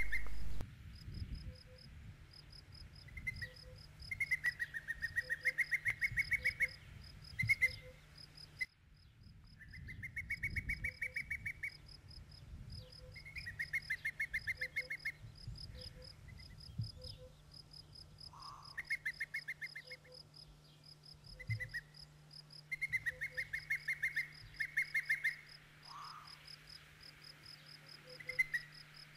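Outdoor wildlife chorus: high trilling calls, each lasting a second or two and repeated every few seconds, over a steady fast high-pitched ticking like crickets.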